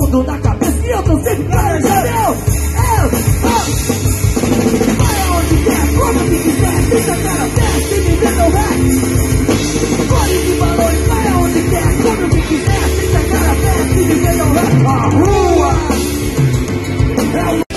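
Rock band playing live, punk-style: electric guitar, bass guitar and a drum kit, with a lead singer.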